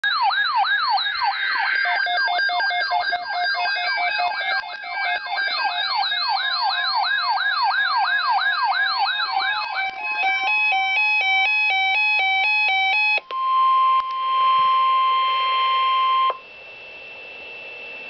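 NOAA weather alert radios sounding tornado-watch alarms: fast, rapidly repeating siren-like sweeps, then a stepped two-tone alarm that cuts off about 13 seconds in. A steady single-pitch tone, the NOAA Weather Radio alert tone, follows for about two seconds, then faint radio hiss.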